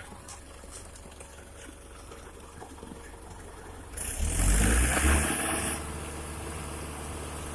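Diesel engine of a concrete mixer truck. A low hum at first, then about four seconds in a loud burst of rumble and hiss lasts under two seconds, after which the engine runs steadily.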